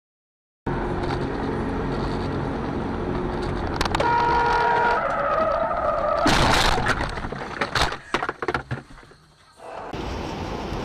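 After a moment of silence, a car's cabin and road noise, then tyres squealing shrilly under hard braking. About six seconds in comes a loud crash as the car strikes another car, followed by scattered knocks and rattles. Near the end, steady road noise returns.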